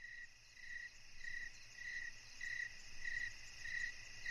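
Crickets chirping: a steady high insect chorus with a chirp repeating about every 0.6 seconds, growing slightly louder over the first second or two.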